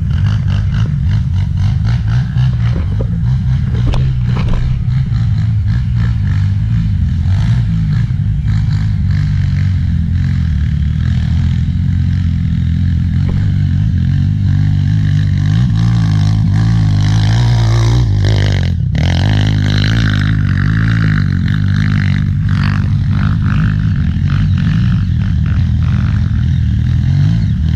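Air-cooled single-cylinder four-stroke trail motorcycle engine running continuously under throttle while riding, with small changes in engine speed.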